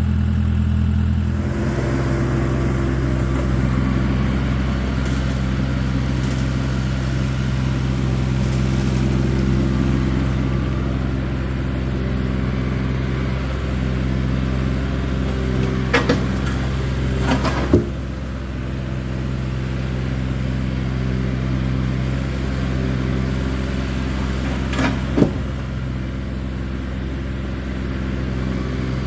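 Tractor engine running steadily, its speed changing once about a second and a half in. A few sharp clanks come through around the middle and again near the end.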